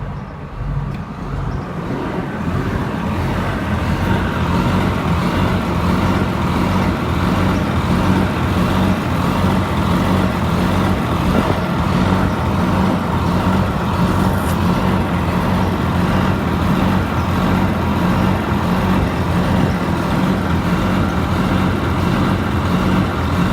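Cummins QSM11 inline-six diesel engine running at a steady speed, getting louder over the first few seconds and then holding even.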